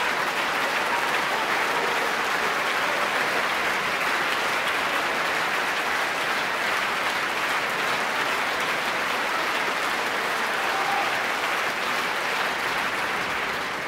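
Large audience applauding steadily, the clapping dying down near the end.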